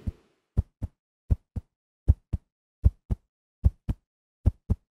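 Heartbeat sound effect: a steady run of low lub-dub double thumps, six pairs at about eighty beats a minute.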